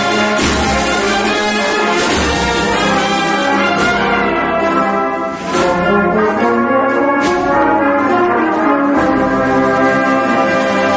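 Brass-and-percussion band of trumpets, tuba and other brass playing a Spanish processional march, with drum strokes marking the beat. The music dips briefly about halfway through, then comes back at full strength.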